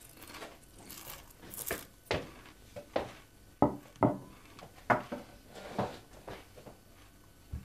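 Crockery and cutlery clinking and knocking on a kitchen table: a mug and a plate set down, with a spoon in a cereal bowl. A string of about seven sharp, irregular clinks and knocks.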